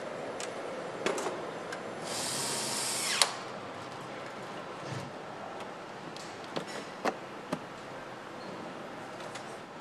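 A power tool runs for about a second with a hissing sound and stops with a sharp click. Scattered clicks and knocks come from parts being fitted to a motorcycle, over a steady factory background.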